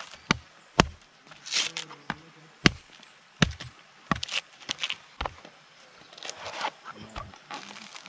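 Machete chopping into the husk of a yellow coconut to open it: repeated sharp whacks at uneven intervals of about half a second to a second, with rustling and tearing of husk fibres between some strikes.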